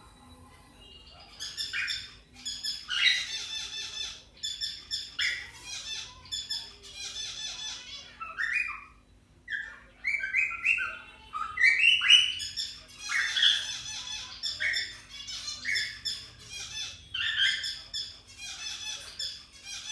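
Cockatiels calling: repeated squawks and chirps in quick runs, with a few short sliding notes near the middle.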